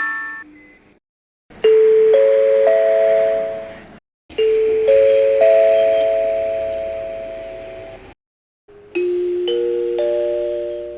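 Seibu Bus in-vehicle chimes played one after another. Each is three or four rising bell-like notes that ring on and fade away, with a short silence before the next, and each chime has a different tune.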